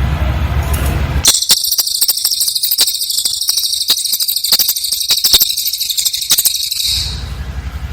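Cililin bird singing one dense, very high-pitched rapid trill, an insect-like burst of its 'nembak' song lasting about five and a half seconds. It starts about a second in and breaks off near the end. A low buzzing hum fills the gaps before and after it.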